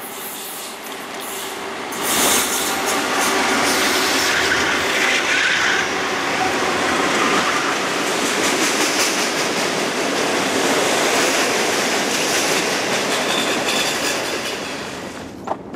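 A freight train's cars rolling along the rails: a steady, loud rumble and rattle of steel wheels that fades out near the end.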